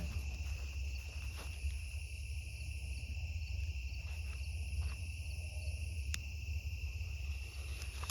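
Crickets chirping steadily in a high, even trill, over a low steady rumble, with one brief sharp click about six seconds in.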